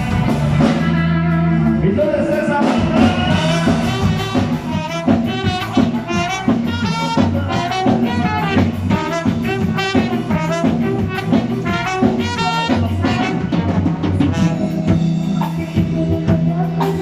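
A band playing, with a drum kit, horns carrying a melody over a steady bass line, and a voice singing at times.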